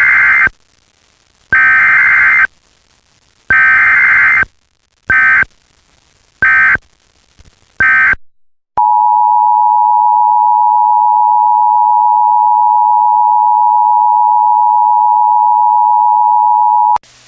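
Emergency Alert System tones: three data-header bursts of about a second each, then three shorter bursts, then the steady two-tone attention signal held for about eight seconds and cut off near the end. Loud.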